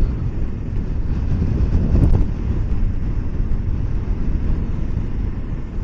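Kawasaki Versys 650 parallel-twin engine running at low riding speed, with wind buffeting the camera microphone, swelling briefly about two seconds in.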